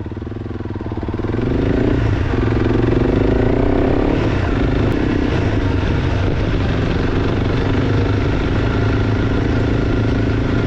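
Honda CRF300 Rally's single-cylinder engine, fitted with an aftermarket exhaust, pulling away from idle and rising in revs through the first few seconds, then running steadily under way. It cuts off suddenly at the very end.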